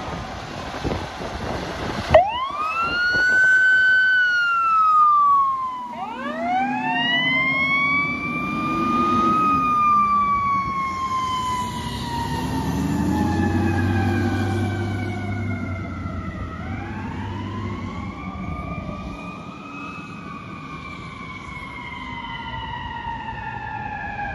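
Fire apparatus sirens start about two seconds in. Each wails up quickly and falls away slowly, and two sirens overlap, with a fresh rise about two thirds of the way through. Beneath them a fire truck's diesel engine rumbles as the Pierce ladder truck pulls past midway; wind buffets the microphone before the sirens start.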